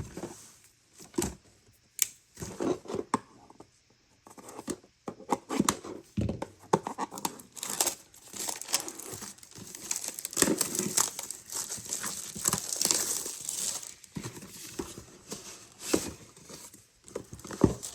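Plastic wrapping being torn and crumpled off a Pokémon card Elite Trainer Box while the cardboard box is handled and opened, in irregular sharp crackles and taps.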